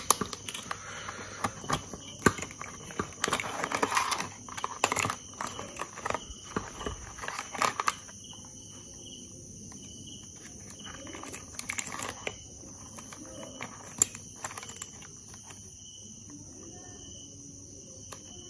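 Clicks and rustling of hands handling motorcycle wiring and plastic connectors, busy for the first half and sparse after about 8 seconds in. A steady high-pitched cricket chirping continues in the background.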